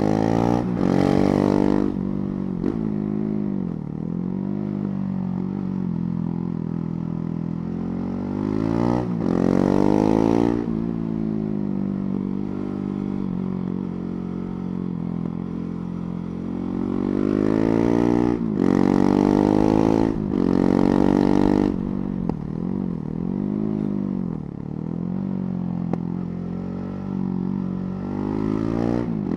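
KTM 690 Duke's single-cylinder engine under way, revving up hard three times. The third pull, about two-thirds in, is broken by quick upshifts, and the engine note falls back on the overrun between pulls.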